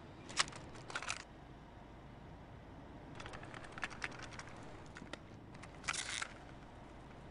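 Faint, scattered clicks and ticks over a low hiss, with no music: a few clicks in the first second, a quick run of ticks around the middle, and a short burst of clicking near the end.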